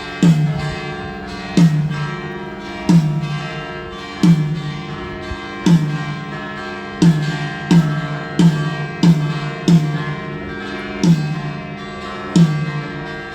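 A low drum struck on its own about a dozen times during a sound check, mostly every second and a half and quicker for a few hits midway, each hit a pitched thud that sinks slightly as it rings, over a sustained chord.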